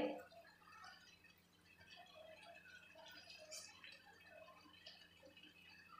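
Near silence with faint, scattered soft pattering and light taps as drained boiled basmati rice is tipped from a steel bowl into a pan.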